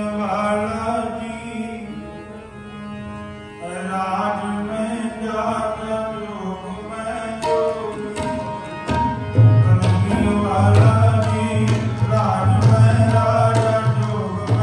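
Live Sikh kirtan: a harmonium drone and melody with a singing voice, and tabla strokes joining in about halfway through.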